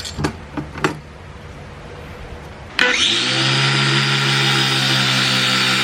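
A few light knocks, then an electric grinder switches on about three seconds in and runs at a steady speed. It is being used to grind down the over-long extension of a transfer-case short-throw shifter.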